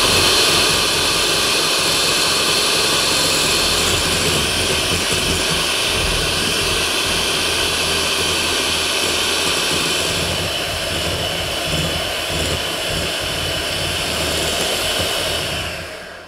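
Electric hand mixer running steadily at speed, its two wire beaters whipping egg whites and sugar into meringue in a glass bowl. It winds down and stops near the end.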